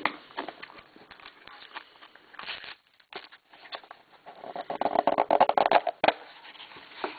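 A trading-card box and its pack wrapper being handled and opened by hand: rustling and crinkling, with a denser, louder stretch of crackling from about four and a half to six seconds in.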